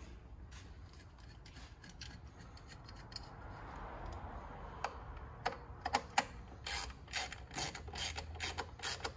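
Hand ratchet tightening a bolt on the intake piping: quiet handling at first, then a run of sharp ratchet clicks through the second half.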